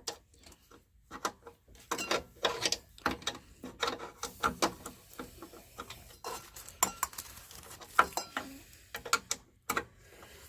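Irregular metallic clinks and clicks of a wrench working the belt-tension adjuster and nut on a belt sander.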